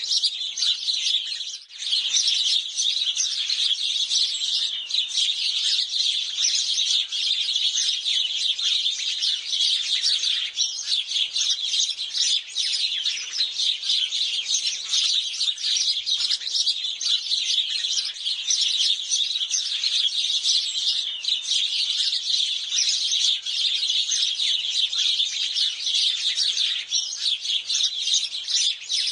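A group of sparrows chirping, with many short chirps overlapping in a dense, continuous chatter and a brief lull about a second and a half in.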